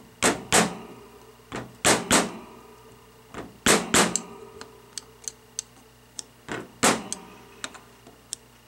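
Sharp metallic clicks and taps, the loudest in pairs, as a small screwdriver tip pushes the toothed retainer ring down over the shaft lip seal in an aluminium Hydro-Gear pump housing. The ring is being seated just hard enough for its teeth to bite into the bore wall and hold the seal in.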